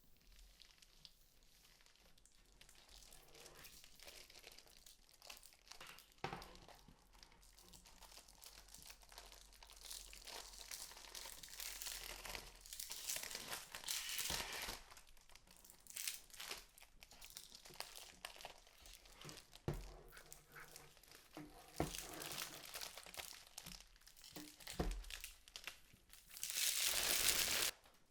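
Packaging wrap crinkling and rustling as a keyboard is handled and unwrapped, with scattered light knocks and taps. A denser stretch of rustling near the end lasts about a second and a half.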